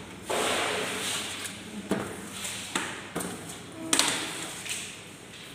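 A few sharp taps and knocks, the loudest about four seconds in, over a rustling hiss in the first half.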